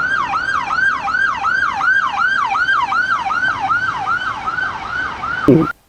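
Toy police car's electronic siren sounding a fast yelp: repeated quick sweeps of pitch, about three to four a second. It cuts off shortly before the end.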